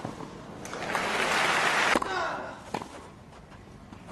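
A tennis ball struck with a crack at the very start, then crowd applause swelling for a little over a second and cutting off abruptly. A single ball hit or bounce follows a little later.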